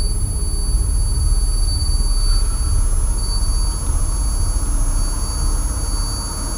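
Film sound-design drone: a loud, dense low rumble with steady high-pitched ringing tones over it, and a fainter mid-pitched tone joining about two seconds in.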